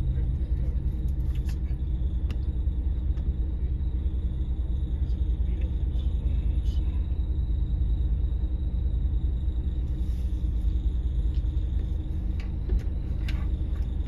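Steady low rumble of an idling engine, with a few faint clicks; a car passes close near the end.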